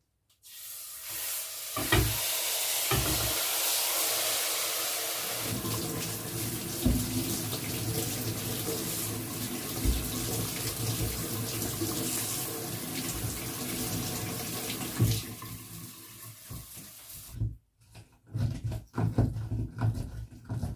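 Kitchen tap running into a sink for about seventeen seconds, turned on and off abruptly, with a few knocks of dishes or utensils against the sink. After it shuts off there are a few scattered clunks.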